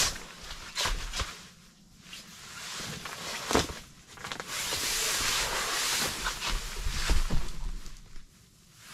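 Air hissing out through the one-way valve of a self-inflating foam sleeping pad as it is pressed and rolled on a cot, with fabric rustling and a couple of knocks from handling it. The steady hiss starts about halfway through and stops shortly before the end.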